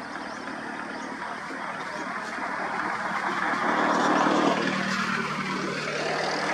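Motor vehicle engine running close by with a steady hum, while a rush of engine and tyre noise builds to a peak past the middle and then eases as a vehicle passes.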